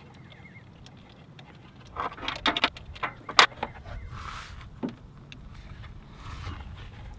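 A quick run of sharp clicks and rattles as the spark plug cap is twisted and pulled off a Vespa LX scooter's spark plug, the loudest a single snap about three and a half seconds in. Soft rustles follow.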